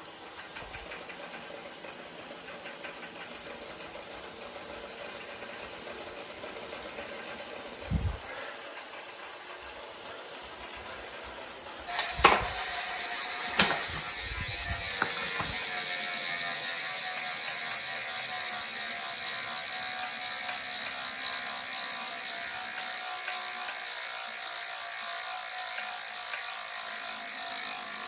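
Saris H3 direct-drive smart bike trainer running with a steady mechanical whir, broken by a few sharp knocks: one about eight seconds in, the loudest around twelve seconds, then two more. These knocks are the trainer's knocking fault. After the knocks the whir grows louder, with a slowly falling tone.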